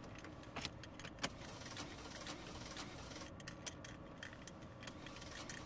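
A bunch of keys jangling, with scattered light clicks and taps, over a faint low background hum.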